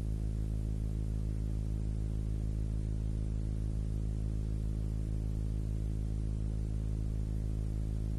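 Steady low hum with a stack of even overtones, unchanging in pitch and level throughout.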